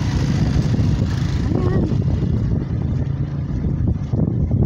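Outdoor street noise: a steady low rumble of road traffic mixed with wind buffeting the phone's microphone.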